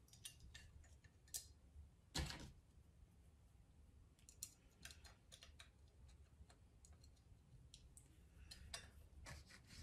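Faint scattered clicks and metallic taps of a small hand tool and screws working on a metal 3D-printer filament-holder bracket, with one louder knock about two seconds in.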